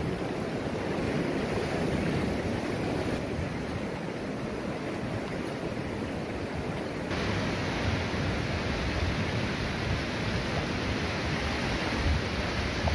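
Shallow surf washing steadily onto a flat beach, with wind rumbling on the microphone. The hiss of the water grows brighter about seven seconds in.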